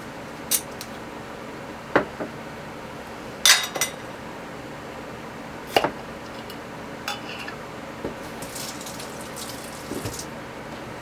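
Scattered clinks and knocks of glass containers and kitchen utensils being handled while elderberry juice is readied for measuring. The loudest clink comes about three and a half seconds in.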